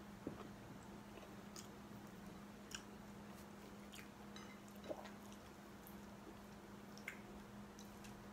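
Faint sounds of a person eating rice and stir-fried greens by hand: soft chewing with a handful of small clicks and smacks spread through, the sharpest about five seconds in, over a faint steady hum.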